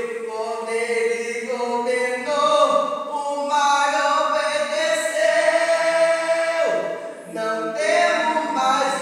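A man singing a slow melody, holding long notes. One note is held for over a second before falling away about seven seconds in.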